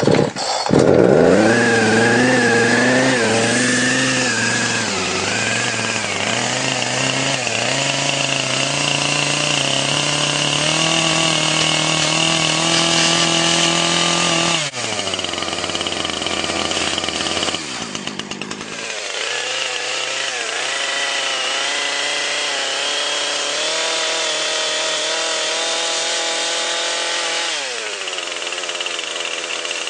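Chainsaw revving up and running at high speed. Its pitch drops sharply about halfway through, climbs back a few seconds later and falls again near the end.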